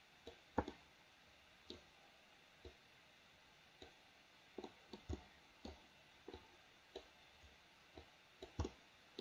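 Faint computer mouse button clicks, irregular and spaced out, some coming in quick pairs.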